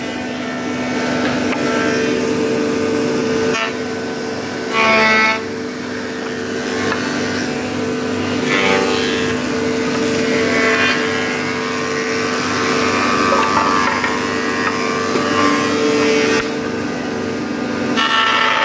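Woodworking machinery, such as a wood planer, running with a steady hum, with a louder, higher sound over it about five seconds in.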